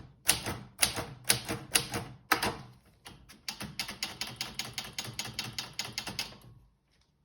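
President 7000 typewriter being typed on: a handful of loud, separate key strikes about two a second, then a quicker, quieter run of rapid clicks for about three seconds that stops shortly before the end.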